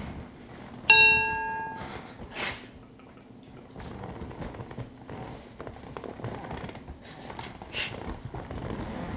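A single bright metallic ding, like a small bell or chime, struck once about a second in and ringing out for under a second. A few short, soft noises follow over low room tone.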